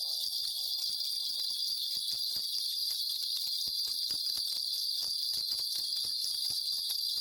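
A Korean shaman's spirit bells, a cluster of small bells on a handle, shaken without a break: a steady jingling shimmer made of many small clinks. They are being rung to consult the spirits for a divination reading.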